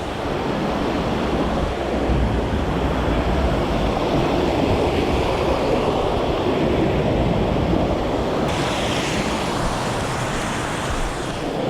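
Steady rush of water pouring over a rocky river cascade, a continuous even roar with no breaks.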